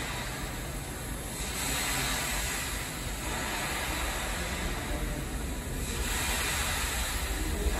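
Subway train running in an underground station: a steady low noise with hiss that swells and eases twice.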